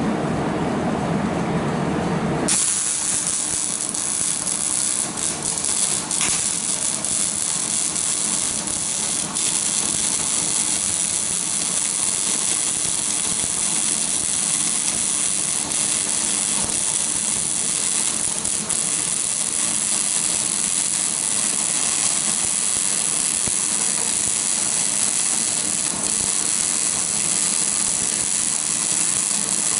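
A welding arc strikes about two and a half seconds in and then runs with a steady hiss and crackle. Before it, a lower rushing noise.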